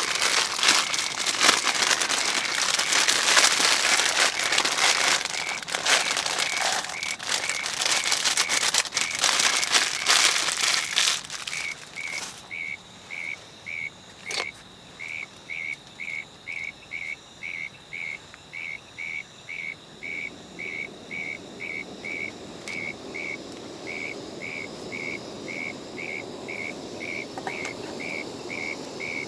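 A loud, dense crackling hiss that stops suddenly about eleven seconds in. Through it and after it, a high chirp repeats steadily about twice a second, like an insect calling at night.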